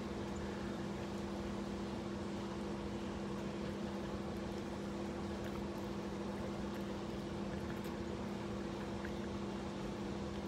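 A steady machine hum: two low, unchanging tones over a constant hiss.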